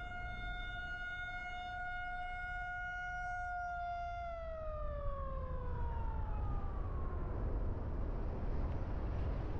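A siren holds one steady tone, then about four seconds in winds down, falling in pitch and fading out over about three seconds. Underneath, the car's engine and tyre noise runs steadily, louder once the siren has died away.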